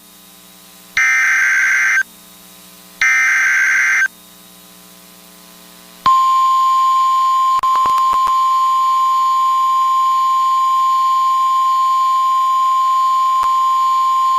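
Emergency Alert System tones on NOAA Weather Radio. First come the last two bursts of the SAME digital header, each a harsh, buzzy data screech about a second long with a second's gap between them. About six seconds in, the steady single-pitch 1050 Hz warning alarm tone starts, with a few clicks of static shortly after it begins. The tones herald a tornado warning.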